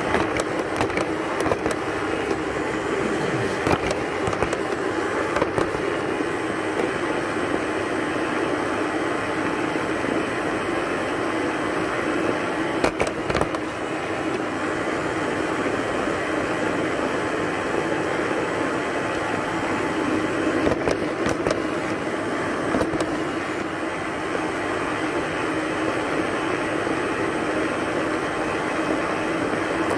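A simple robot vacuum cleaner running, heard up close: a steady whir of its motor and brushes. Now and then there is a sharp knock as its bumper runs into furniture, the way a bump-sensing robot finds its way by feel.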